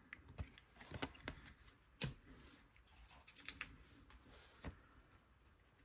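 Faint, scattered clicks and light rustles of glossy trading cards being handled and shuffled by hand, about half a dozen small ticks spread irregularly, the sharpest about two seconds in.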